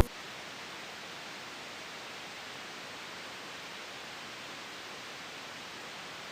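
Steady static hiss, even and unchanging, like an empty broadcast channel.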